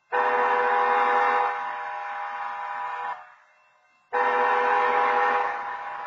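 Railroad crossing wayside horns sounding two long horn blasts of about three seconds each, a second apart. Each blast drops in level partway through.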